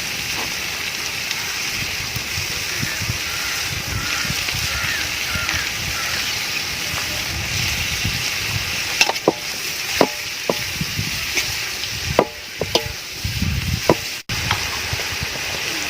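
Sliced onions with salt frying in hot oil, sizzling steadily as they soften. From about nine seconds in, a spoon knocks and scrapes against the pan several times as they are stirred.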